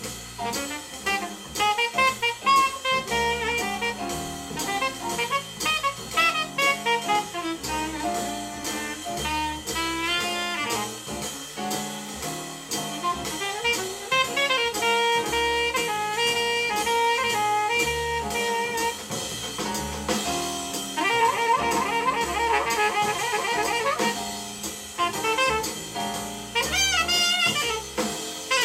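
Jazz record playing over a hi-fi system: alto saxophone soloing over drums, with a flurry of fast notes about three-quarters of the way through.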